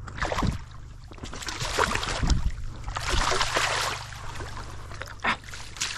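River water splashing and sloshing close by in irregular bursts, loudest from about two to four seconds in.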